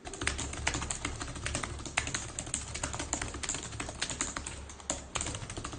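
Fast touch-typing on a computer keyboard: a rapid, dense run of key clicks with a brief lull about five seconds in, over a steady low hum.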